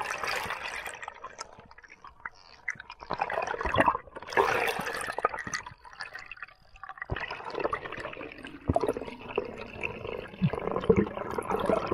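Underwater bubbling and water rushing over a camera housing, coming in several gurgling bursts of a second or more with small clicks and pops between quieter gaps.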